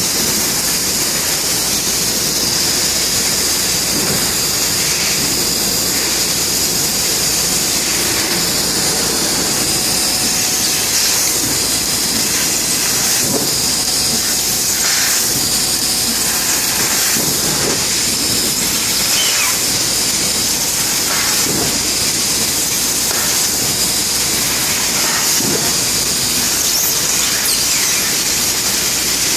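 Bystronic CNC laser cutting machine running, with a steady high hiss.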